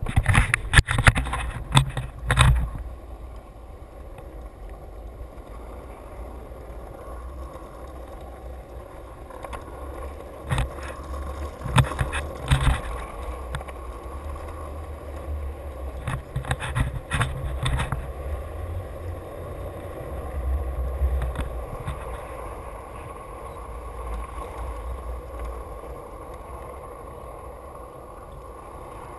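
Skateboard wheels rolling on an asphalt path, a steady low rumble broken by several clusters of sharp clicks and knocks, the loudest near the start.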